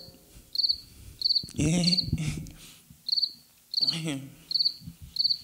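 Cricket chirping, most likely a sound effect: short, high chirps repeating evenly about every two-thirds of a second. This is the stock 'crickets' gag for a joke met with silence.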